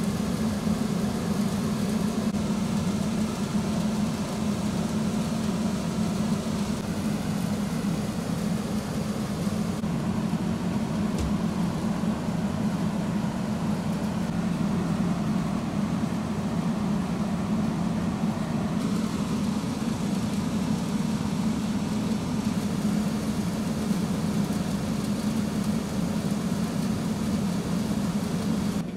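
A large truck engine idling: a steady low hum under a wash of street noise, with small shifts in the background a few times.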